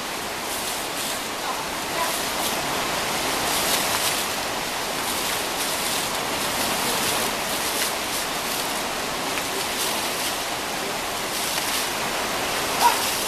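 Shallow river water rushing steadily, with occasional splashes as elephants and keepers move and throw water. A short, sharp, louder sound comes near the end.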